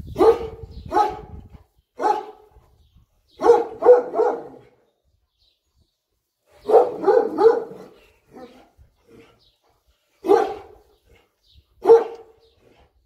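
A nursing Kangal shepherd dog barking in short runs of one to three barks, about a dozen in all, with pauses of a second or more between them.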